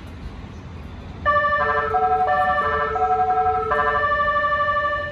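An electronic chime melody, a short run of held chords, starts about a second in and stops near the end, typical of a Japanese station platform melody. Under it runs the low rumble of the train creeping along the platform.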